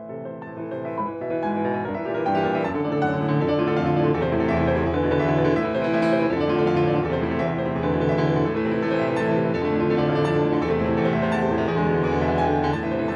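Steinway grand piano played solo, a dense run of many quick notes that grows from soft to loud over the first couple of seconds and then stays loud.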